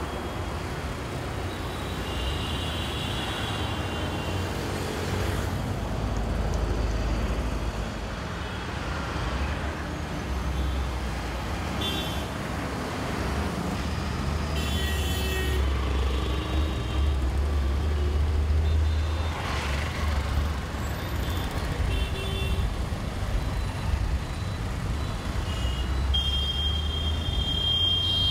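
Busy road traffic passing: a steady low rumble of engines and tyres from cars, buses, auto rickshaws and motorbikes. Vehicle horns toot a few times, a few seconds in, around the middle, and a longer one near the end.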